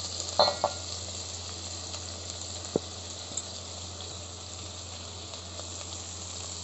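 Sliced onions sizzling steadily in a little hot oil as they are tipped into the pan from a plate, with a couple of light knocks about half a second in and a single sharp tick near three seconds.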